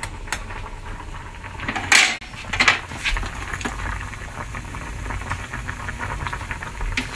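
Saucepan of green peas boiling in salted water, bubbling steadily, with a few sharp clinks and knocks, the loudest about two seconds in.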